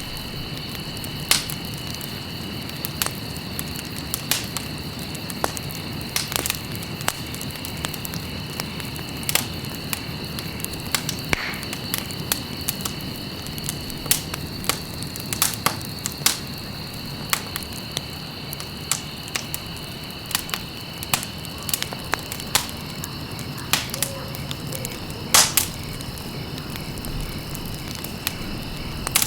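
Campfire crackling: burning wood gives off irregular sharp pops and snaps, several a second, over a steady hiss, with a few louder cracks such as one about a second in and one near the end. A thin, steady high-pitched tone runs underneath.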